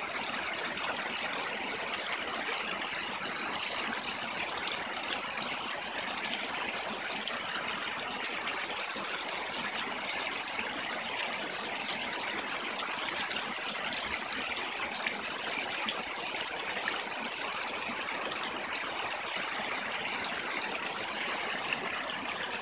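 Fast-flowing stream rushing over rocks and small cascades: a steady, unbroken rush of water.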